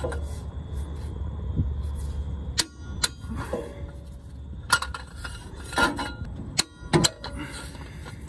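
Sharp metallic clicks with a brief ring, about five spread out irregularly, from a wrench on the U-joint bearing-cap bolts at the driveshaft yoke as they are torqued up.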